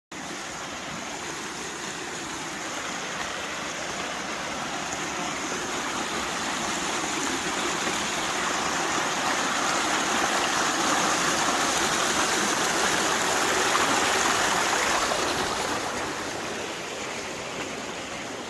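Mountain stream running and rushing. It grows louder through the middle and eases off again near the end.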